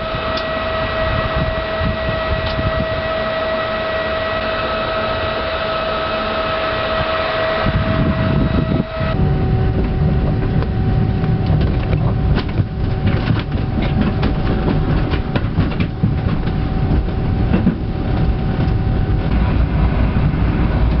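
Heathrow Pod driverless electric pod car in motion, heard from inside the cabin: a steady motor whine that changes pitch about nine seconds in, with a low running rumble that grows louder from then on and scattered clicks and rattles.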